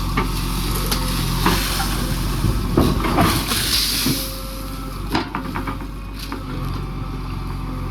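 JCB 3DX backhoe loader's diesel engine running steadily. From about a second and a half in there is a burst of rattling and rushing noise for a couple of seconds, followed by several sharp knocks.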